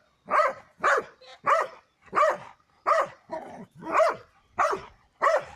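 A dog barking repeatedly: about eight single barks, a little over half a second apart.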